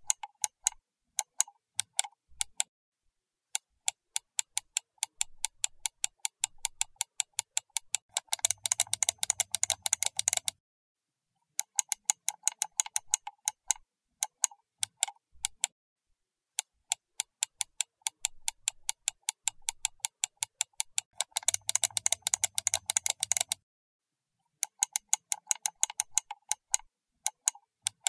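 Rapid, even ticking clicks, several a second, like a fast-running clock. They come in runs with short pauses between, and grow denser and louder for a couple of seconds about a third of the way in and again near the end.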